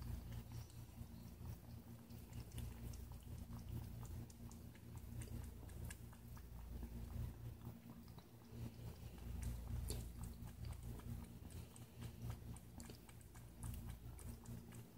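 A kitten eating from a plastic bowl: faint, irregular small clicks of chewing and biting, over a steady low hum.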